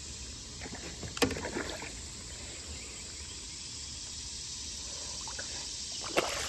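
Kayak on the water: a steady hiss from the creek and its surroundings, with a sharp knock about a second in and another near the end.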